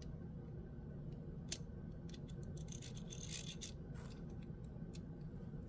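Faint, scattered clicks and short scrapes of the Gao Studio Magnetic Master 2.0 magnetic fidget coin being handled: one sharper click about a second and a half in, a cluster of scrapes around three seconds. A low steady hum lies underneath.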